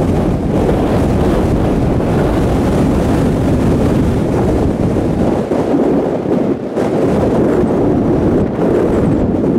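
Strong wind buffeting the microphone: a steady low rushing that dips briefly about six and a half seconds in.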